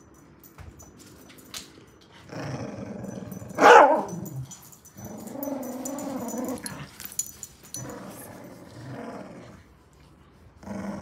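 A dog growling in play, in several stretches of a second or two each, with one loud, sharp bark about four seconds in.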